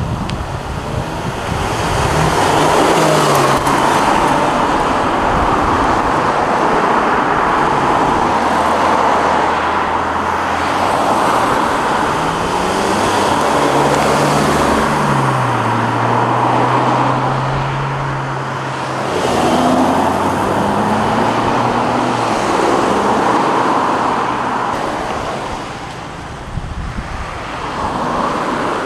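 Cars driving off one after another over a constant rush of passing-traffic noise. Engines rev up with a rising pitch a little before the middle and again after it, with a steady engine note in between.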